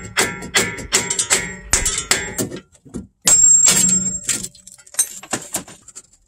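Metal clanks and knocks as the CV axle is worked out of the front wheel hub, about three a second with some ringing. About three seconds in comes a louder scraping clatter lasting about a second, then a few light clicks.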